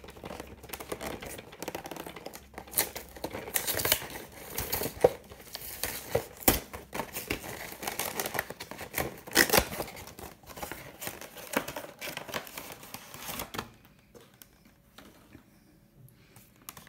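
Cardboard collection box being handled and opened by hand: rustling, scraping and sharp clicks of cardboard and a clear plastic insert tray. The handling stops about three seconds before the end and it falls nearly quiet.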